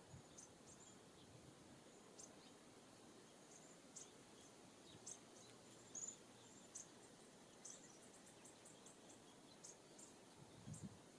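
Near silence with faint, brief high-pitched chirps scattered irregularly, including a quick run of several about two-thirds of the way in.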